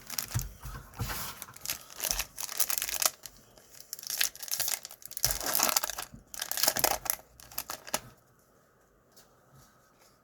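A trading-card pack wrapper being torn open and crinkled, a run of ripping and rustling bursts that stops about eight seconds in.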